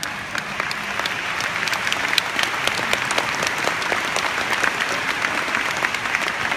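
Large audience applauding. The clapping starts at once and builds a little over the first couple of seconds, then goes on steadily.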